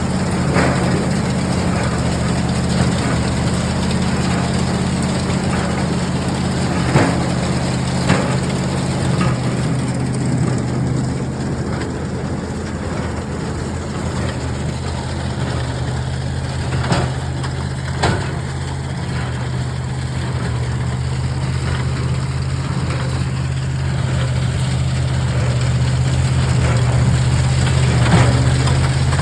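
New Holland Super 77 hay baler working behind an engine that runs at a steady speed, with a handful of short, sharp knocks from the machinery at irregular moments.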